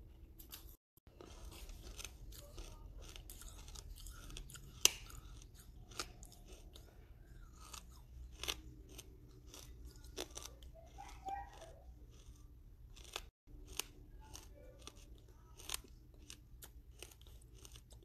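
A person chewing and crunching pieces of red brick, with many short crisp crunches; the sharpest, loudest crunch comes about five seconds in.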